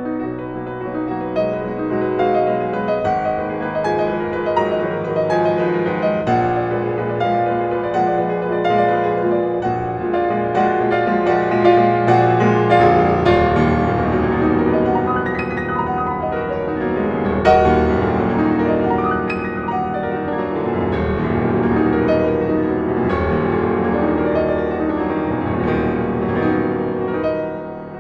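Solo grand piano playing a continuous, many-note passage. About halfway through, the bass grows much fuller and heavier.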